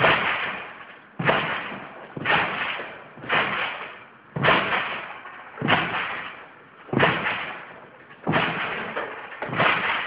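Trampoline mat and springs taking a tramp-bike rider's bounces in a steady rhythm: nine sudden hits, about one every 1.2 seconds, each fading away over about a second.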